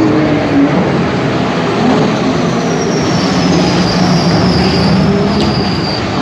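Race car engine running steadily at speed, with a high whine that slowly falls in pitch from about three seconds in.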